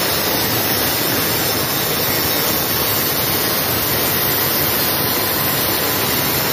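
Handheld electric marble cutter with a diamond blade cutting through a granite slab: a loud, steady grinding run along a marked line.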